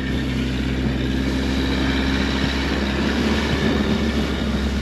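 Motorboat engine running steadily at speed, under loud rushing water and wind noise.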